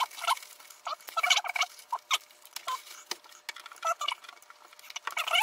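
Plastic wrappers and packets crinkling and rustling in the hands as they are pulled out of a bag, in short irregular bursts.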